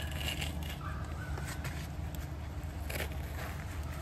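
A tent stake being pushed by hand into gritty dirt and pressed down underfoot, giving faint scrapes and crunches over a steady low rumble.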